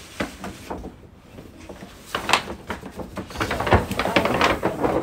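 Large stiff paper shopping bag and box packaging being handled and pulled up, rustling and crinkling, with a few knocks. The handling gets busier in the second half.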